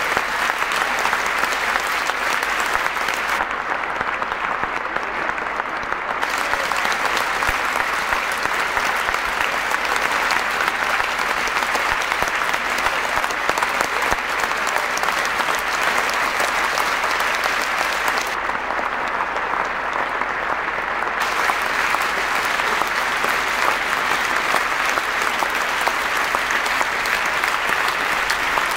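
Large cinema audience giving a standing ovation: dense, continuous applause from hundreds of people clapping, holding steady without a break.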